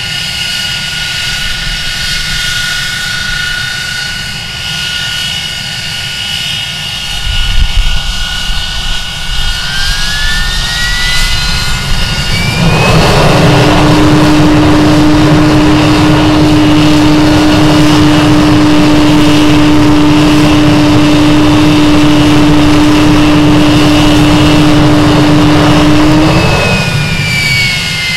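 Avro Vulcan's Rolls-Royce Olympus turbojet engines on a ground run. They start with a steady high whine, then spool up with a rising whine about ten seconds in into a loud roar with a steady howling tone. This holds for about thirteen seconds, then they spool down with a falling whine near the end. A brief low rumble comes about seven seconds in.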